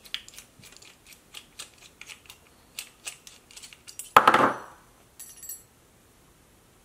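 A hex driver backing a small screw out of an aluminium RC center diff mount, a run of light metal clicks and ticks. A little after four seconds there is one loud metal clack as the brake disc comes free, and then a brief faint clink as a disc is set down.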